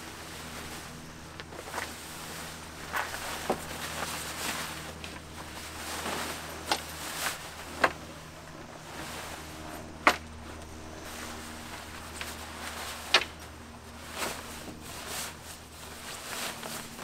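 Scattered sharp clicks and knocks, about eight of them spread irregularly, from the parts of a folding truck-camper tent room being handled, over a steady low hum.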